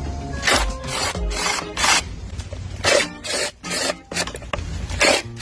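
Irregular short scraping strokes, about eight in five seconds, like something being rubbed or rasped by hand.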